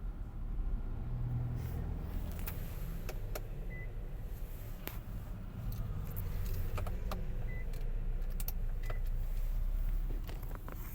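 Keys jangling and clicking as they are handled, with three short high electronic beeps spaced a few seconds apart and a steady low rumble underneath.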